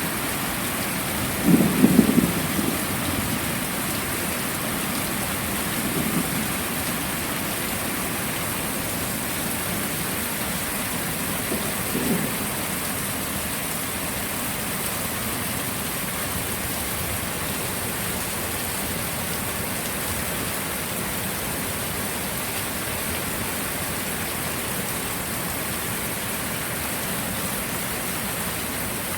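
Heavy rain falling steadily, with short rumbles of thunder about two seconds in, around six seconds and around twelve seconds; the first is the loudest.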